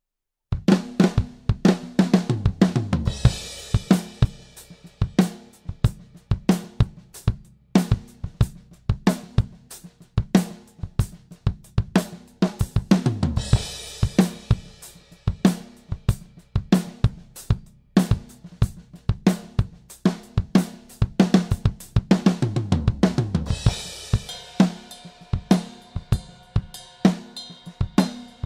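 A 1967 Ludwig Hollywood drum kit with a 1978 Ludwig Acrolite snare, played in a steady groove of kick, snare and hi-hat and recorded raw through close Avantone drum mics with no effects. The playing starts about half a second in, and three times a fill runs down the toms into a cymbal crash.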